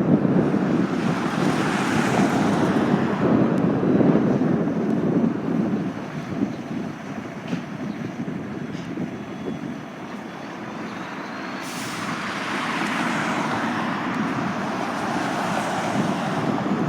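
Heavy road vehicle engine and road noise, swelling as traffic passes, dipping about ten seconds in and swelling again, with one sharp click near the middle.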